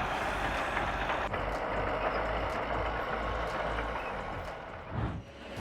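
Heavy vehicle engine running steadily; the sound drops away near the end.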